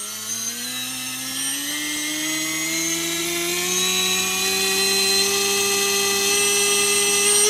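Xhover 2204 2300KV brushless motor spinning an HQ5040 propeller, its whine rising steadily in pitch as the throttle is turned up and levelling off near the end at hover thrust.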